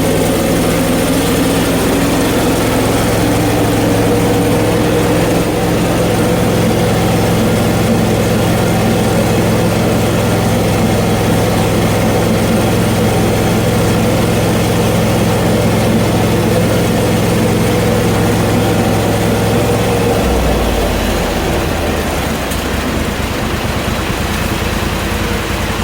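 Portable band sawmill's gasoline engine running steadily as the band blade saws through a hard maple log. About twenty seconds in it drops to a slower, uneven idle.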